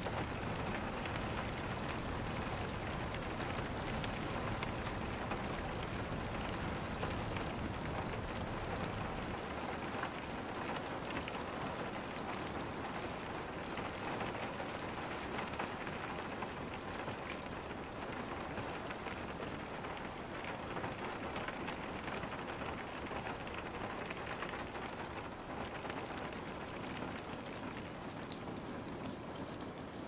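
Rainstorm: rain falling steadily in an even, unbroken hiss.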